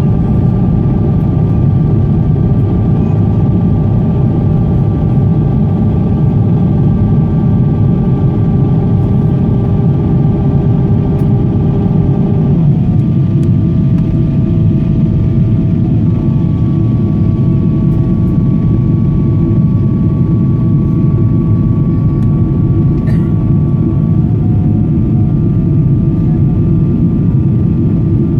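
Steady roar of a Boeing 777-200ER's engines and rushing air heard inside the passenger cabin, with a few steady engine tones above the roar that shift about twelve seconds in.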